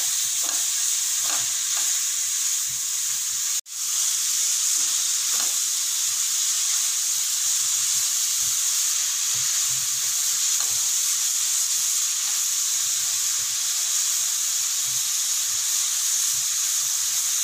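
Grated beetroot sizzling steadily as it is sautéed in hot ghee in a nonstick pan, with the soft irregular scrape of a spatula stirring it. The sound cuts out for an instant about four seconds in.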